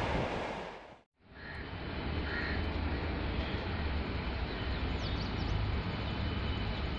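The rumble of a passing train dying away over the first second and cutting off, then a steady low background rumble with birds calling now and then, a few short chirps and thin falling whistles.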